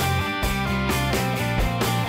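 Rock intro music with guitar and a steady beat.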